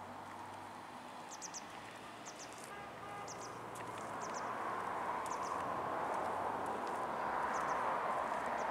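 Outdoor ambience: small birds chirping in short groups of two or three high notes, over a steady rushing background noise that grows louder about halfway through.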